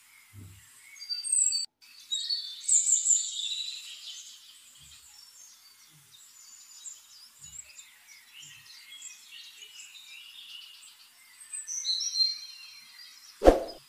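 Small birds chirping and twittering, in many short high calls. Near the end there is a single loud metallic clang.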